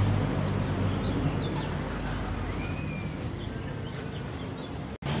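Street ambience: a car passes and fades away at the start, leaving a steady low rumble of distant traffic, with a few short bird chirps over it. The sound cuts out for an instant near the end.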